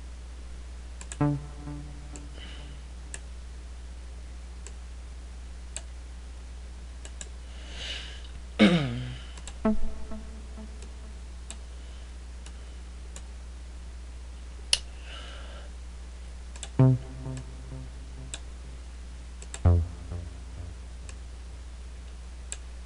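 Short synthesizer notes sounding one at a time, about five, as notes are placed in the FL Studio piano roll and previewed, one of them sliding down in pitch as a note is dragged lower. Faint mouse clicks and a steady low hum lie between them.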